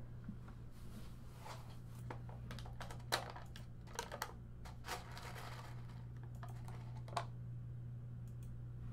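A handful of scattered, irregular clicks and taps at a computer keyboard, over a steady low hum.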